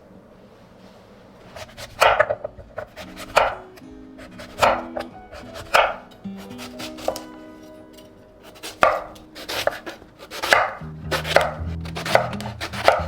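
A knife chopping on a cutting board in slow, separate strokes, about one a second, with a pause of a few seconds in the middle. Soft background music plays underneath.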